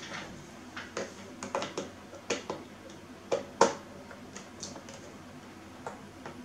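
Irregular light clicks and taps of a screwdriver and small parts being handled against the plastic back case of a keyboard, with a couple of louder knocks past the middle.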